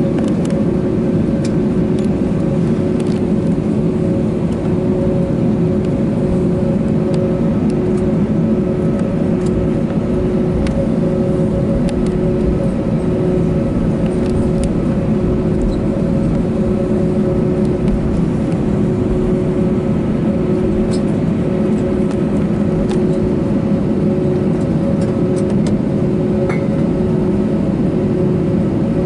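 Steady cabin noise of a Lufthansa Airbus A320 taxiing on its engines: a low rumble with two steady humming tones.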